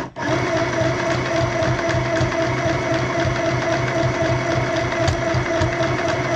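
Compact electric sewing machine running steadily under its foot pedal, stitching fabric with an even motor hum. It cuts out for a moment just after the start, then runs on without a break.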